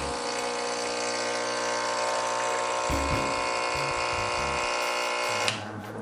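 Pasquini Livietta T2 espresso machine's vibratory pump buzzing steadily as water runs through the group head to preheat the machine. It cuts off about five and a half seconds in.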